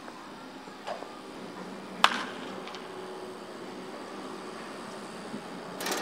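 Sharp crack of a bat striking a baseball about two seconds in, ringing briefly, with a couple of fainter knocks around it over a steady open-air background.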